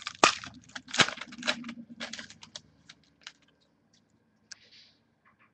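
Trading cards and their packaging being handled: a quick run of light clicks and rustles with two sharper clicks in the first second or so, thinning out to a few scattered clicks after about three seconds.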